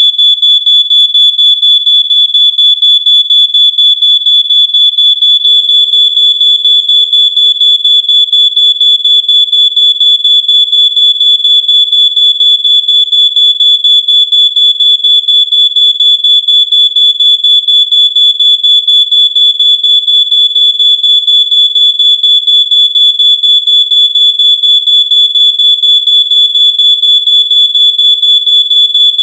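Smoke alarm sounding its full alarm: a loud, high-pitched piezo tone beeping rapidly and without a break. The continuous run of beeps marks a detected-smoke alarm, not the single low-battery chirp. A faint lower tone runs underneath.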